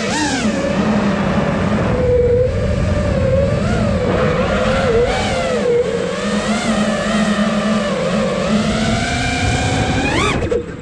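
Brushless motors and propellers of a 5-inch freestyle FPV quadcopter whining, the pitch rising and falling with the throttle. Near the end the pitch sweeps sharply up, then drops briefly.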